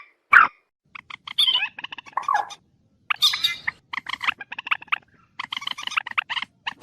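Purple swamphen calling: a string of short, harsh squawks and cackles, some gliding in pitch. Near the end they break into a rapid stutter of notes.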